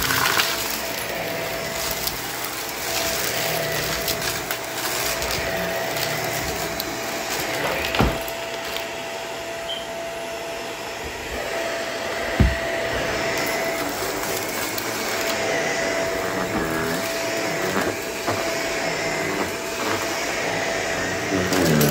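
Vacuum cleaner running steadily, with a constant whine over its rushing air, and two sharp clicks partway through.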